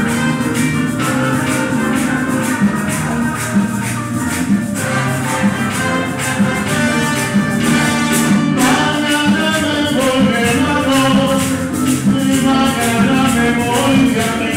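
Live Latin band music: singers over maracas and steady percussion, with trumpet and trombone playing from about halfway through.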